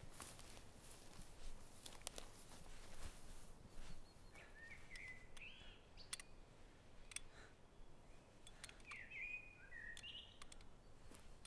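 Faint crackling and swishing of tall dry grass as someone walks through it. A small bird chirps in two short runs, midway and near the end.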